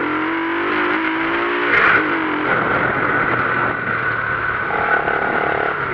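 Motorcycle engine running while being ridden, holding a steady pitch, with a high steady whine over it from about two seconds in.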